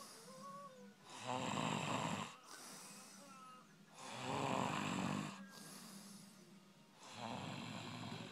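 A sleeper snoring steadily: three loud snores about three seconds apart, with quieter exhales between them.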